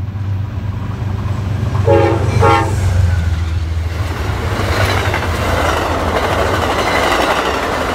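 Amtrak passenger train passing: the locomotive's steady low hum, two short horn blasts about two seconds in, then the rising rush of the stainless-steel passenger cars' wheels on the rails as they go by.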